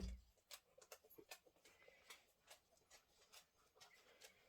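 Faint handling of fabric and cardboard on a craft table: a soft low thump at the start, then scattered light clicks and taps.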